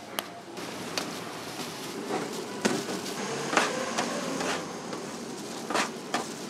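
Food-preparation clatter on a stainless steel stall counter: scattered sharp knocks and clicks, several seconds apart, over a steady hiss and rustle of shredded filling being tossed by gloved hands.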